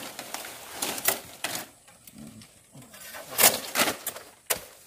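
Nipa palm leaflets being torn off the frond one at a time: a string of sharp rips and leafy rustles, with a lull around the middle before a few more.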